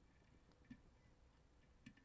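Faint clicks of a lock pick working the pins inside a DOM RS Sigma lock, a few light ticks with the clearest about 0.7 s in and another near the end.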